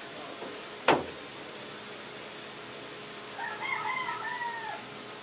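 A single sharp knock about a second in, then a rooster crowing once for over a second near the end, over a steady low hiss.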